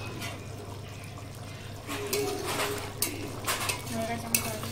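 Thick curry simmering and bubbling in a metal kadai, with a spatula scraping and knocking against the pan a few times in the second half.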